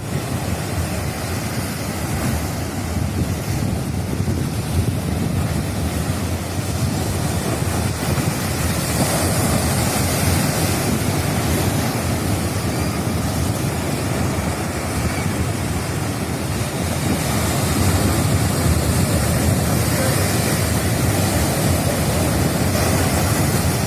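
Waves of a rough sea breaking and washing on the shore in a steady, continuous surge, with wind buffeting the microphone.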